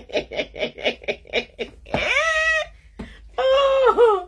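A woman laughing in quick, even 'ha-ha' pulses, then a short high-pitched squeal about two seconds in and a drawn-out vocal cry near the end.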